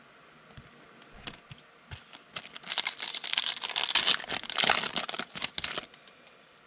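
A foil trading-card pack wrapper being torn open and crinkled by hand, a few light clicks first, then about three and a half seconds of dense crackling from about two seconds in.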